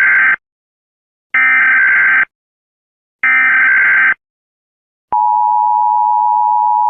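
Emergency Alert System SAME header: three one-second bursts of data tones, the first already underway, followed about five seconds in by the steady two-tone EAS attention signal.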